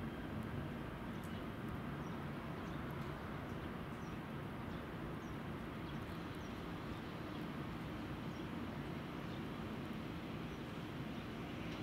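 Steady low rumble and hum of railway station ambience, with a few faint, short, high chirps scattered through it.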